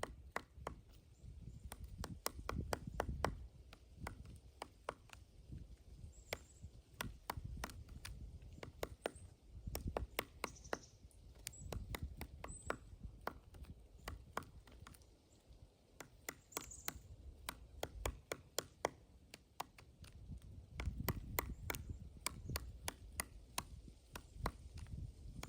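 Pileated woodpecker chiselling into a pine trunk: sharp wooden knocks at an irregular pace, a few a second, over a low rumble. A few faint high chirps come in now and then.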